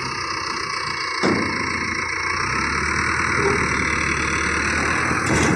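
Mahindra Arjun Novo 605 DI tractor's diesel engine running steadily. A sharp clunk comes about a second in, and another near the end.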